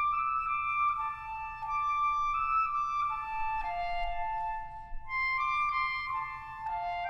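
Solo clarinet played slowly in its high register: held notes stepping downward, joined without gaps, then a second descending phrase that starts again higher about five seconds in. It is a slow-practice demonstration of moving down from the high register with steady air between notes.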